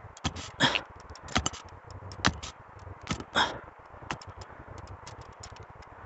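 Small hand pick digging: the blade strikes and scrapes dry soil and grass roots in irregular scratchy hits, a few louder strikes standing out in the first half.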